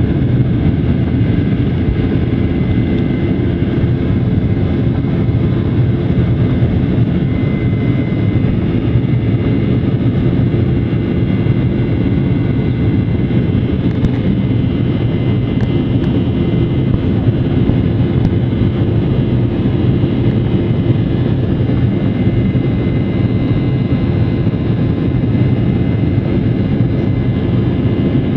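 Jet airliner's engines and rushing air heard inside the passenger cabin during takeoff: a loud, steady rumble with a faint high steady whine over it.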